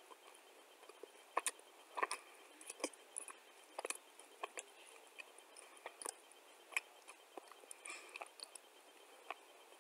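Clay being chewed with the mouth closed: faint, irregular crunches and small clicks.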